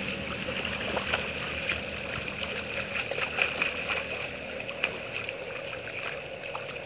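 Shallow pond water sloshing and splashing as two men wading in a seine net grab a cachama broodfish, with many small splashes and drips.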